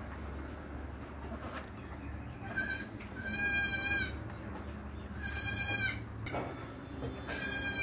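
Assam Hill Goat bleating four times in high-pitched calls, the first one short and the rest each well under a second long. A steady low hum runs underneath.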